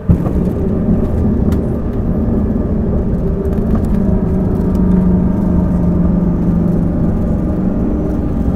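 Cabin noise of a Bombardier CRJ200 rolling on the ground after landing: its rear-mounted GE CF34 turbofans and the airflow make a steady, loud low drone. It comes in suddenly at the start and then holds steady.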